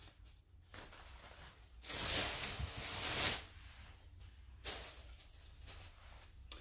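Rustling of clothing being handled: a longer rustle about two seconds in and a brief one near five seconds as a t-shirt is picked up and unfolded.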